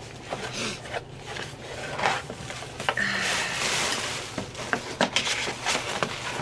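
A cardboard box being pulled out of a larger shipping box: cardboard scraping and rubbing with scattered knocks, and a longer scraping rustle about halfway through.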